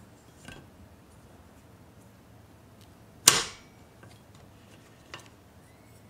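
Wire egg slicer closing through a hard-boiled egg: the wire frame snaps down against the metal base with one sharp clack and a short metallic ring about three seconds in. Fainter clicks of the slicer's metal parts come before and after.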